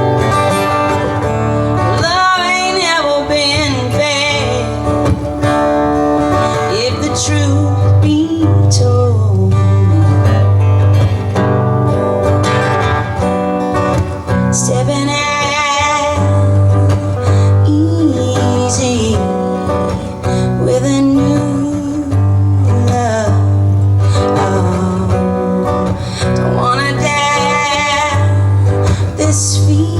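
Live band music: strummed acoustic guitar over a steady bass, with a wavering lead melody line coming in and out.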